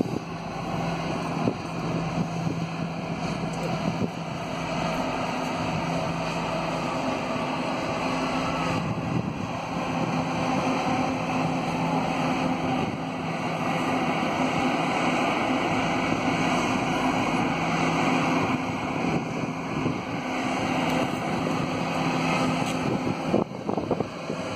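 The MS Chi-Cheemaun ferry's engines run with a steady low hum, under a continuous rush of wind on the microphone.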